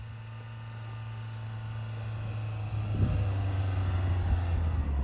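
Mahindra Scorpio-N diesel SUV engine pulling up a snowy slope on tyres without snow chains, a steady low hum growing louder as it comes closer.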